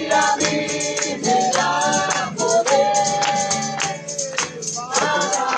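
A group singing a worship chorus together, with a tambourine keeping a steady beat.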